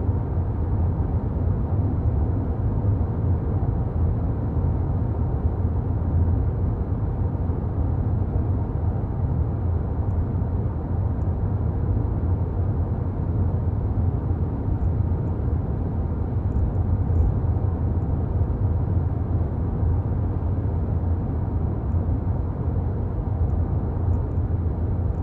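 Steady low rumble of a car's engine and tyres heard inside the cabin while driving.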